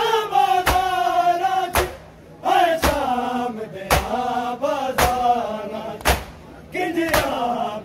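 A male voice chanting a noha lament in long held notes, with a crowd of men beating their bare chests (matam) in unison, one sharp slap about once a second, seven strikes in all.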